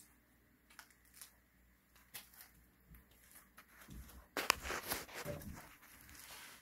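Handling noise from a phone held in the hand: a few light clicks, then about four seconds in a louder stretch of rustling and crackling as fingers rub over the phone and its microphone.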